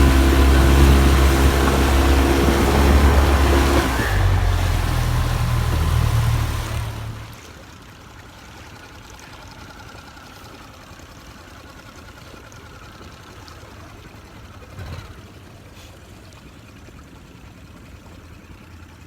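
Mercury 9.9 outboard motor running fast, throttled back about four seconds in, then falling quiet about seven seconds in, leaving faint water and wind noise.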